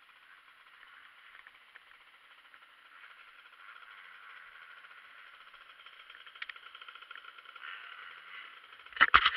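Dirt bike engine running at low speed, heard thin and muffled through a helmet camera's case, slowly growing louder. About nine seconds in, a few loud knocks.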